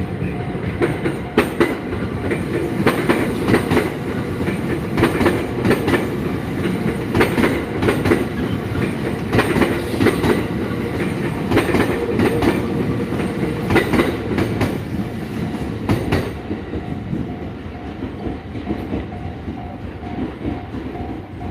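A train passing over a level crossing, its wheels clattering over the rail joints for about sixteen seconds, with the crossing's warning bell ringing in a steady repeating pattern that is heard on its own once the clatter stops.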